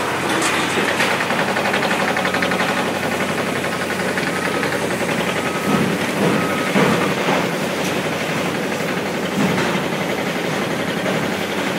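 Caterpillar hydraulic excavator running under load while its demolition attachment crushes concrete and debris, a steady engine noise with rapid rattling clatter and scattered knocks. A short beep repeats three times, about a second apart, around the middle.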